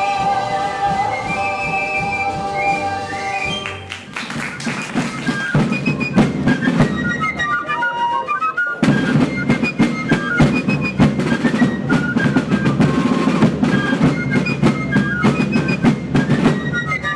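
Music: a held chord with a rising run of notes, then, about four seconds in, a march-like passage with rapid drum strikes under a high flute melody.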